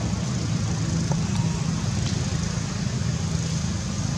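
Steady low rumble with a faint constant hum underneath.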